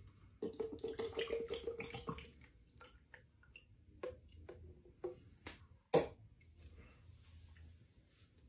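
Fireball cinnamon whisky glugging out of its bottle into a plastic cup for about two seconds, then scattered light clicks and knocks from the bottle and cup being handled, the sharpest about six seconds in.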